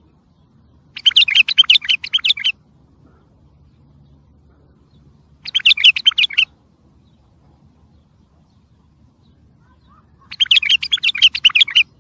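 Wild bulbul singing three short phrases about four seconds apart. Each phrase is a quick run of clear notes lasting a second or so.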